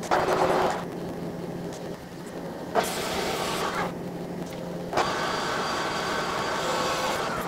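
Metal lathe with a four-jaw chuck: a couple of short noisy bursts over a low steady hum, then a sharp start about five seconds in as the chuck spins up, and the lathe runs steadily.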